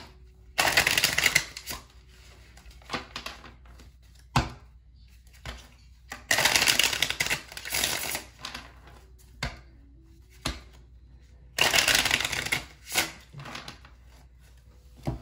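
A deck of cards being shuffled by hand in three bursts of rapid, fluttering clicks, with a few single taps in between.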